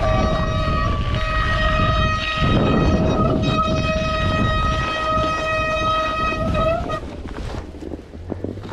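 Rail vehicle running with a long, high-pitched squeal of several steady tones over a low rumble. The squeal shifts pitch about two seconds in, bends upward and stops about seven seconds in, leaving the rumble quieter.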